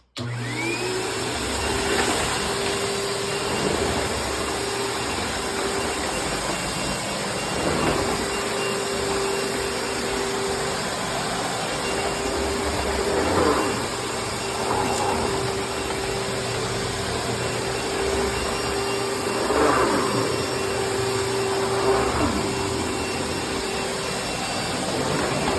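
Kenmore Progressive upright vacuum with a 12-amp Panasonic motor, switched on and whining up to speed within the first second. It then runs steadily on a rug, with the brush roll engaged through its clutch on the carpet setting and the height on extra low. Its level swells briefly several times.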